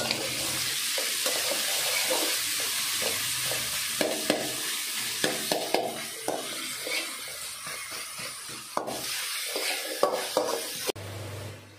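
Sliced onions and green chillies sizzling in hot oil in a metal kadai, stirred with a metal spatula that scrapes and knocks against the pan again and again. The sizzling stops abruptly near the end, leaving a low hum.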